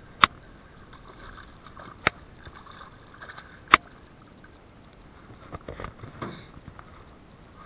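Three sharp knocks on a small fishing boat, a couple of seconds apart, then a flurry of smaller thumps and splashing near the end as a hooked bass is brought to the side and swung aboard onto the deck.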